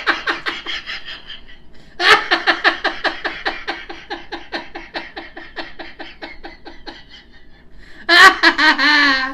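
A man and a woman laughing hard together in quick, rhythmic ha-ha-ha pulses that trail off, then start again. A loud, drawn-out, high-pitched laugh comes near the end.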